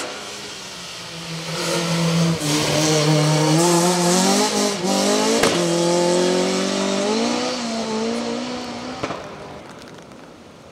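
Opel Kadett C hillclimb race car's four-cylinder engine revving hard as it accelerates up the hill, its pitch climbing and dropping back with each quick upshift, then fading into the distance near the end.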